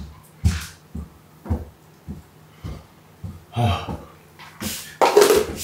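Footsteps on a wooden floor, dull thuds about two a second, then a louder burst of rustling noise near the end.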